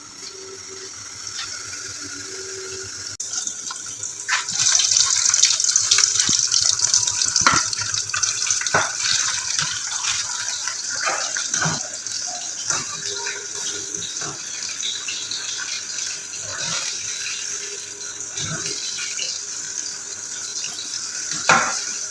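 Water running from a kitchen tap into a sink, growing louder about four seconds in, with frequent short knocks and clatters against it.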